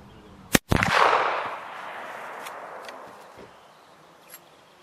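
A single shot from a J. P. Sauer und Sohn single-shot rifle firing a black-powder 11 mm Mauser cartridge, about half a second in, its report echoing and dying away over about two seconds.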